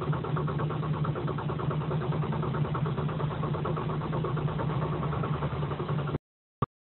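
Kia Soul CRDi common-rail diesel engine idling cold at about 1,000 rpm at −36 °C, a steady rhythmic diesel clatter heard from inside the cabin. It cuts off suddenly about six seconds in.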